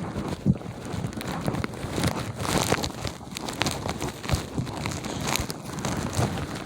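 Footsteps crunching through deep fresh snow, an irregular series of crisp crackles and crunches.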